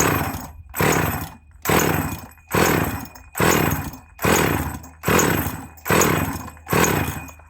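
Husqvarna 444 chainsaw being pull-started over and over on its recoil starter, about nine quick pulls roughly a second apart, each a whirring rasp that fades without the engine catching. The cranking sounds gravelly from the bottom end, which the owner takes for a bearing issue.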